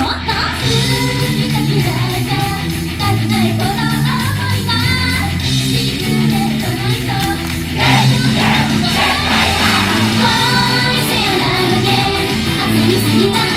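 Japanese idol pop song performed live, with female vocals over a backing track that carries a steady bass line; it gets a little louder about eight seconds in.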